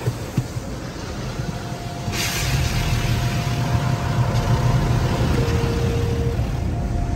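Automatic car wash heard from inside the car: a steady low rumble of the wash machinery and water. About two seconds in comes a sudden hiss of spray hitting the car, and it stays louder after that. Faint held tones sound in the background.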